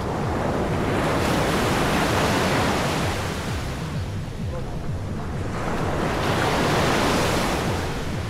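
Sea waves washing onto a beach: the surf hiss swells and ebbs twice, one wave building about a second in and another about six seconds in, over a low rumble of wind on the microphone.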